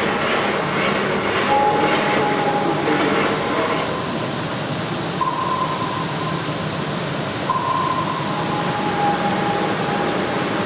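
Steady rumbling ambience of a large underground hall, with faint voices early on and a few long held tones that come and go.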